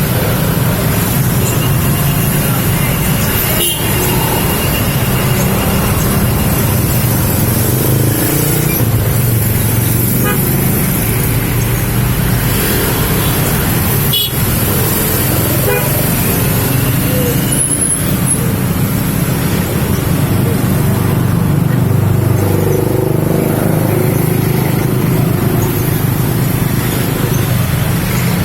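A young crimson sunbird practising its song: a few faint thin notes and short trills over a loud, steady rumbling background noise.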